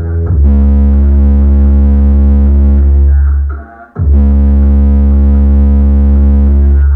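Bass-heavy electronic music played loudly through a Sony DX8 sound system, dominated by long held deep bass notes at a low volume setting of 7. The music cuts out briefly about three and a half seconds in, then comes back with the bass at full strength.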